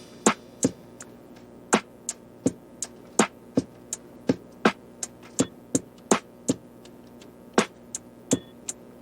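Sparse electronic background music: sharp drum-machine clicks, about three a second, over a faint held tone, with a brief pause in the beat about two-thirds of the way through.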